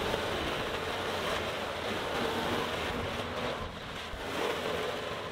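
Diesel engine of a John Deere tracked skid loader running as the machine drives away over the dirt, with wind on the microphone.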